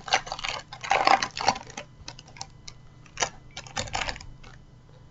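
A Match Attax trading-card packet being torn open: its wrapper crinkles and crackles densely for about two seconds, loudest about a second in, then a few scattered crinkles and clicks as the cards come out.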